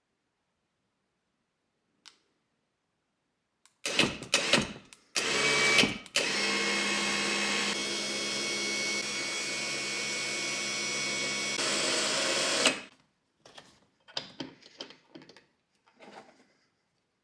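Anbull 12V electric winch powered on for the first time: its motor and gear train are given a few short jogs, then run steadily for about six seconds with a whine and stop suddenly. A few light clicks and knocks follow.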